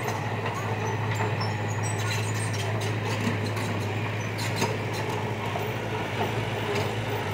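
A heavy construction machine's engine running steadily with a constant low hum, with scattered clicks and rattles over it.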